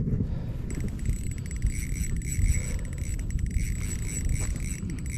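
Wind buffeting the microphone on open lake ice: a low, gusting rumble.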